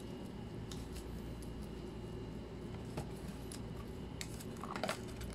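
Quiet room hum with a few faint clicks and rustles of a cardboard Happy Meal box being handled, the loudest near the end.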